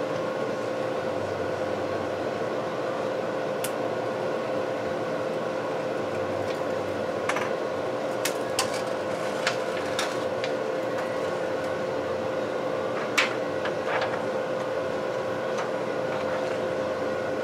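A steady fan-like hum with one constant tone, with scattered light clicks and taps as the tablet's replacement glass digitizer and its parts are handled.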